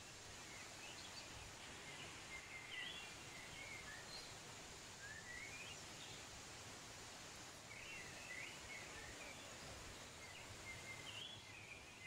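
Faint, steady rush of a waterfall, with small birds chirping and twittering in short phrases every second or two.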